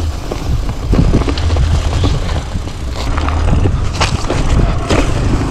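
Mountain bike ridden over bumpy grass, heard through a GoPro Hero 8's microphone: a heavy low rumble with knocks and rattles from the bike as it goes over bumps, the sharpest about four seconds in.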